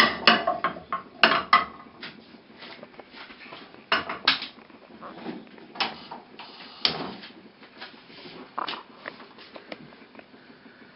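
Metal clanks and knocks of a double-sided hinged frying pan being set down on a gas stove's metal grate and its lid swung open: a quick cluster of loud knocks in the first second and a half, then scattered lighter clicks and knocks.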